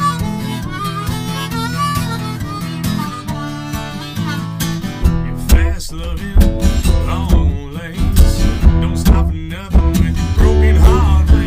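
Acoustic guitar and harmonica playing an instrumental passage together. The guitar's low end grows heavier about five seconds in.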